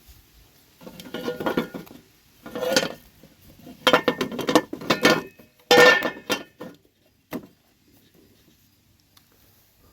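Clinking and rattling of hard objects against a container, in four bursts over about six seconds, then a single click.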